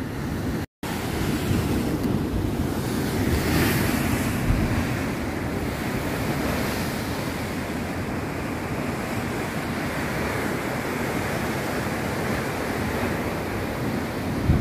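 Atlantic surf breaking and churning against volcanic rock, a steady rush of waves with one louder surge about four seconds in. The sound drops out completely for a split second near the start.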